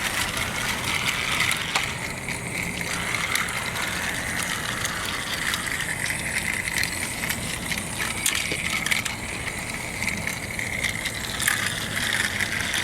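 Battery-powered Trackmaster toy train engines running along plastic track: a steady motor whir with occasional clicks of the wheels over the track.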